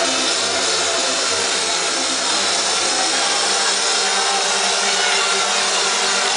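Electronic dance music over a club sound system, recorded from the crowd on a phone. The kick drum beats about twice a second for the first two seconds, then drops out for a breakdown: a loud wash of noise with held synth notes.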